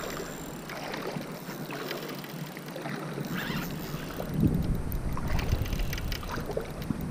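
Wind buffeting the microphone at the water's edge, with a strong gust about four and a half seconds in, over small waves lapping at the bank.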